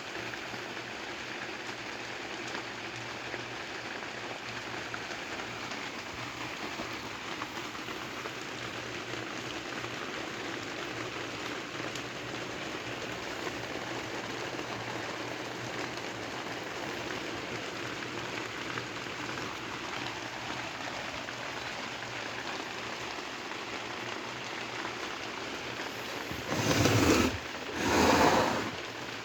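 Kawamoto N3-206SH well pump running with a steady hissing, rattly noise over a low motor hum, the abnormal noise the seller reports. Two short, much louder noisy bursts come near the end.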